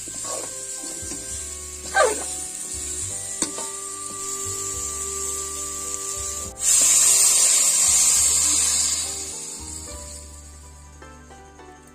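Mango pieces sizzling in hot oil in a wok while being stirred with a wooden spatula, with a scrape of the spatula about two seconds in. About six and a half seconds in, water poured into the hot pan sets off a sudden loud hissing rush that dies down over the next few seconds.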